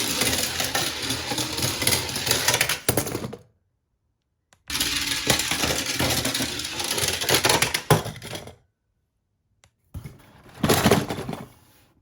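Die-cast Tomica toy cars rattling and clattering as they roll fast down a plastic track. The rattling comes in three runs cut apart by silent gaps; the last is quieter, with a burst of clatter in the middle.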